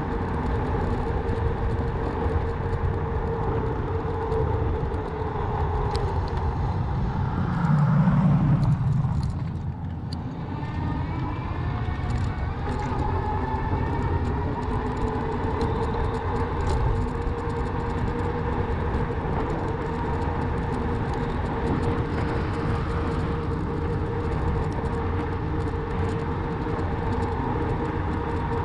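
Electric bike on the move, with the motor's steady whine over road and wind noise. About eight seconds in a louder rumble swells, then the whine drops away and climbs back up over the next few seconds as the bike picks up speed again.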